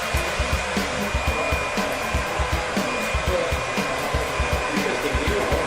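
Vacuum cleaner motor running steadily, a continuous rushing noise with a thin high whine, over background music with a steady thumping beat.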